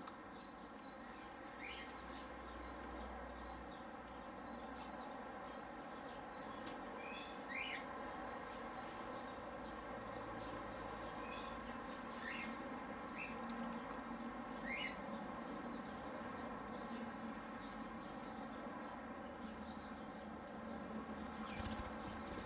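Small birds giving short, high chirps and squeaks, scattered irregularly, over a steady low background hum.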